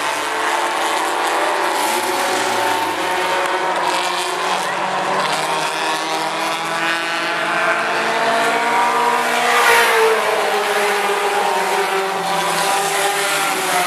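Mini truck race engines running hard at speed around an oval, their pitch rising and falling as the trucks pass, loudest about ten seconds in.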